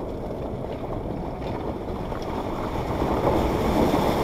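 Suzuki Jimny crawling over a gravel riverbed: a low engine rumble with tyres crunching on loose stones, getting louder about three seconds in.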